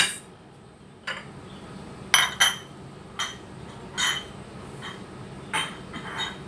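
Stainless steel mixing bowl clinking and knocking on the table as gloved hands toss chicken-feet pickle in it. There is a sharp knock at the start, then about seven short metallic clinks with a brief ring, unevenly spaced.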